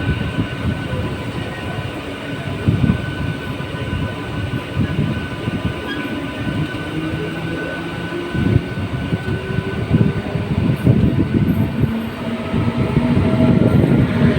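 Express passenger train hauled by a WAP-7 electric locomotive passing at speed: a steady, heavy rumble of coaches with irregular clattering of wheels on the track. A faint steady high whine runs under it and fades about ten seconds in.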